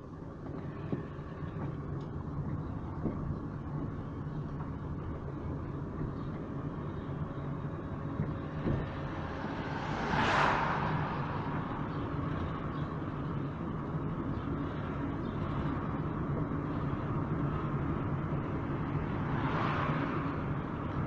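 Engine hum and road noise of a vehicle driving along a road, heard from the vehicle itself, with two brief whooshing swells, one about ten seconds in and one near the end.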